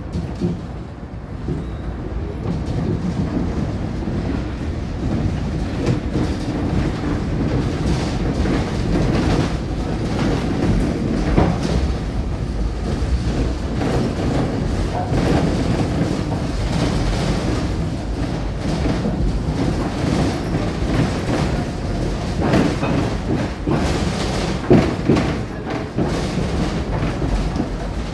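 Interior ride noise of a V3A-93 articulated tram in motion: steady low running noise of the motors and wheels on the rails, with repeated clacks and knocks as the wheels pass over the track. It grows louder over the first few seconds, then holds steady.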